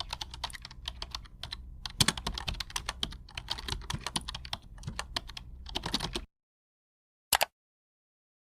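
Typing on a computer keyboard: rapid, irregular key clicks over a low hum for about six seconds, stopping suddenly, followed a second later by one short click.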